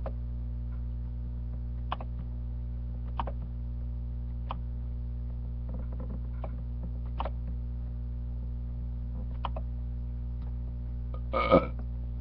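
A steady electrical hum with a handful of sharp, isolated clicks a second or more apart. Near the end comes a short, louder vocal sound from a person.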